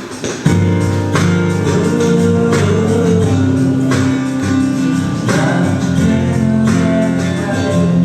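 Music starting about half a second in: a guitar strumming with a bass line.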